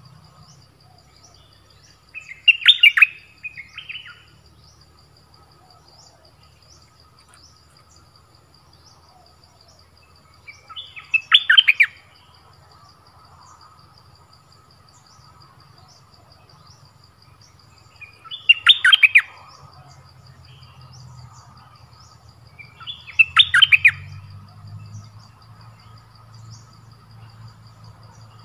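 Caged bulbuls (นกดอกแตง, Malay merbah lekir) calling in four short, loud bursts of song, each about a second long and spaced several seconds apart. A faint steady high ticking and a low rumble run underneath.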